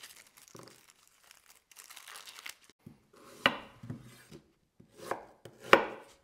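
Dry onion skin rustling and tearing as onions are peeled by hand, then a large kitchen knife cutting through the onions and striking a wooden cutting board: three sharp chops in the second half, the last the loudest.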